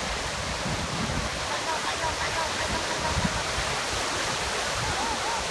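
Ocean surf washing onto a sandy beach: a steady rush of breaking waves, with faint distant voices over it.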